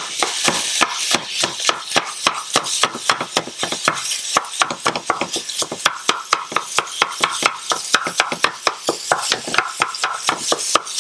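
Plastic ground meat chopper striking down through raw ground beef onto a nonstick skillet, quick rhythmic taps several times a second, breaking the beef into small crumbles. Under the taps, a steady sizzle from the beef cooking on medium-high heat.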